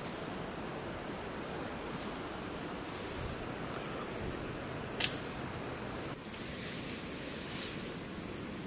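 Steady high-pitched trill of insects, crickets, running without a break, with one sharp click about five seconds in.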